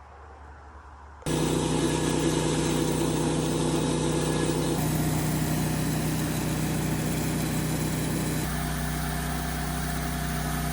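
An engine running steadily at an even speed, starting abruptly after about a second of low hum; its tone changes suddenly twice.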